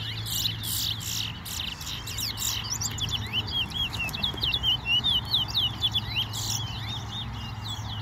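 A caged songbird singing a long, fast run of quick sliding chirps, louder about halfway through. This is one song in a singing match where each song is counted aloud. A steady low hum lies underneath.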